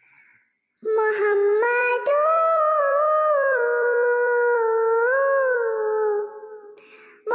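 A high singing voice from the background song, holding long notes that slowly bend up and down. It comes in about a second in and fades out near the end.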